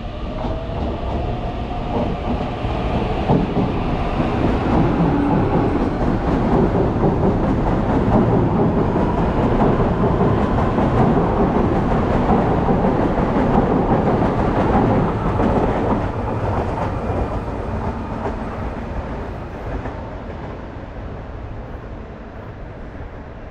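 Electric multiple-unit commuter train passing along a station platform: wheels on rails and motor hum grow louder as it comes in, hold for about twelve seconds, then fade as it pulls away, with a whine changing pitch near the start.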